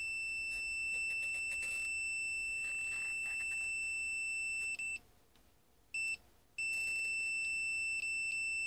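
Multimeter continuity beeper sounding as the test probes touch a wirewound potentiometer's contacts: one long steady high beep, a break about five seconds in with one short beep, then a second long beep that flickers briefly as the probe contact shifts.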